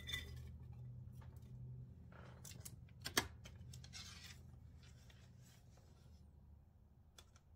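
Faint food-prep handling: hands scooping and brushing chopped onion across a plastic cutting board and dropping it into a slow cooker, with scattered small clicks, one sharper tap about three seconds in and a short scraping sweep just after, over a low steady hum.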